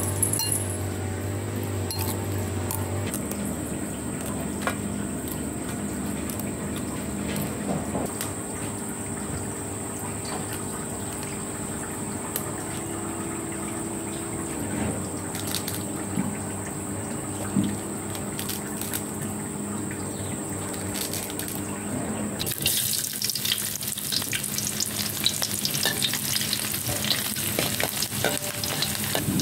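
Scattered light clicks and handling sounds over a faint steady hum, then, about three-quarters of the way through, hot oil sizzling in a wok as it is stirred with a spatula.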